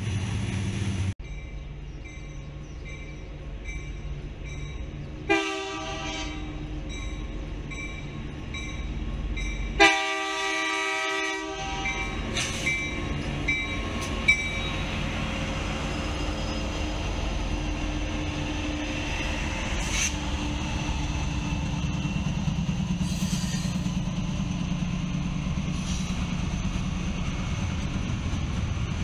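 Diesel freight locomotive air horn blowing a short blast and then a longer one as the train approaches. After that comes a growing rumble of the Norfolk Southern diesel locomotives and their train drawing near.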